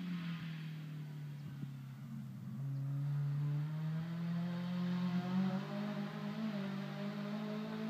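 Toyota AE86's 4A-GE 20-valve silvertop four-cylinder engine running hard on the circuit: its pitch drops over the first couple of seconds as it comes off the throttle, then climbs about three seconds in and stays high as it accelerates.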